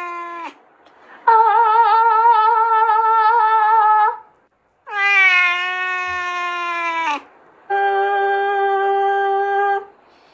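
A cat meowing in long, drawn-out calls, about three of them in a row with short pauses between; one has a wavering pitch and another is held level.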